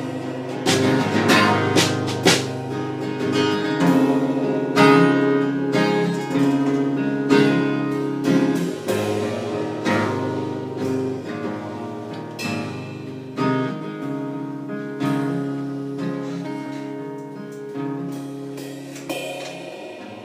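Acoustic guitar strumming sustained chords with drum kit cymbal and drum hits, an instrumental passage without vocals. It gradually gets quieter as the song winds down to its close.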